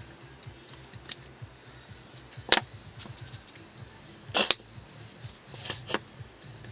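Handling noises while preparing food: a few separate sharp clicks and knocks, the loudest a quick double knock about four and a half seconds in.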